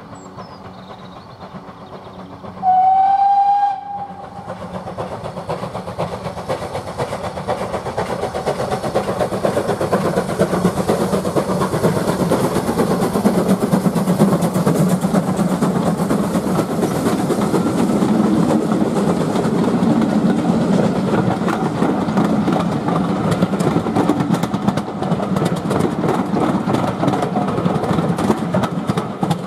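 A steam locomotive, the GWR 5600 class 0-6-2 tank engine no. 5619, gives one short whistle about three seconds in, then passes close by hauling a train of coaches, its running and steam rising to a loud steady rumble and hiss. Near the end the coach wheels click rhythmically over the rail joints.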